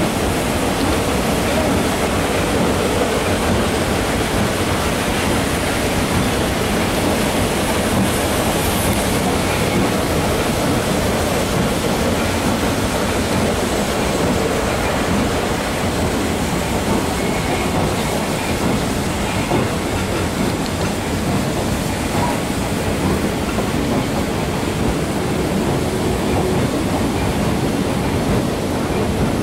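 Train ride behind Shay geared steam locomotive No. 11, heard from aboard: the locomotive working as it pulls the train away from the depot, mixed with the steady noise of the cars rolling on the rails.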